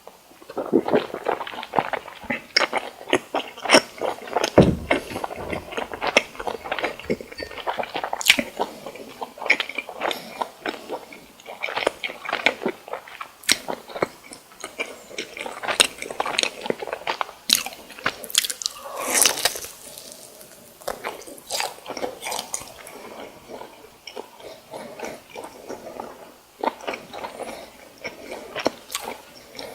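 Close-miked biting and chewing of crispy fried food, with many sharp irregular crunches and wet chewing sounds throughout.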